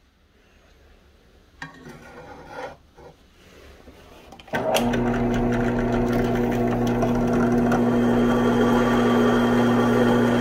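A few light knocks and handling noises, then about four and a half seconds in an electric drill starts and runs steadily with a constant hum. Its twist bit bores through a steel circular-saw blade, throwing off metal chips.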